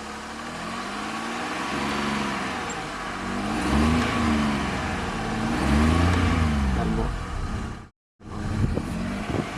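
Small car engine revved three times by pumping the accelerator pedal, each rev rising and falling in pitch, with an idle between. The sound drops out completely for a moment near the end.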